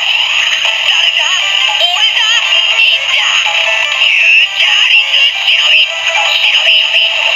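DX Beyond Driver toy belt with the Shinobi Miridewatch inserted, playing its electronic transformation song with a synthesized chanting voice. The sound comes through the toy's small built-in speaker, so it is thin and tinny with no bass.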